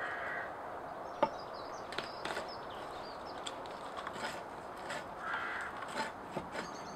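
A crow caws twice, once near the start and again about five seconds in, over a steady outdoor hiss. Between the calls come sharp light clicks and knocks of a billhook blade and birch-bark strip handled on a wooden bench, the loudest about a second in, and a small bird chirps faintly.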